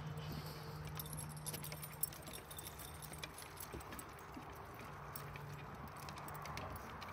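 Footsteps on a wooden boardwalk: a person and several dogs walking along the planks, giving irregular clicks and knocks of feet and paws on the boards.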